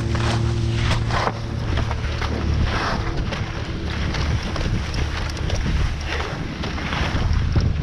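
Wind buffeting the microphone and skis hissing and scraping over packed snow. A steady low machine hum near the start fades out about a second in.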